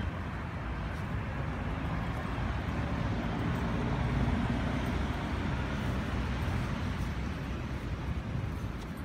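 Steady street traffic rumble, swelling about halfway through as a vehicle passes.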